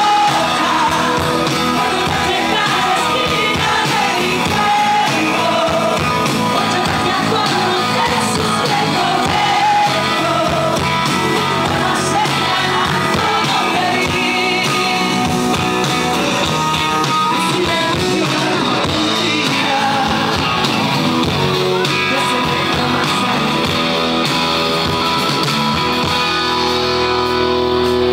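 Live pop-rock song: a woman singing over a strummed acoustic guitar with band accompaniment.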